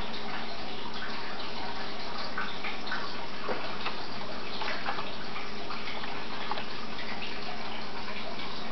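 Steady hissing background noise with a faint hum and a few light clicks.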